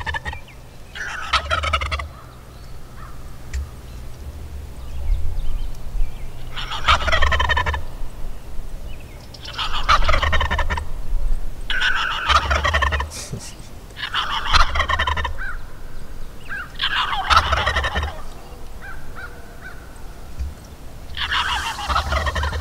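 A jake wild turkey gobbling at the decoys: about seven rattling gobbles, each about a second long, a few seconds apart.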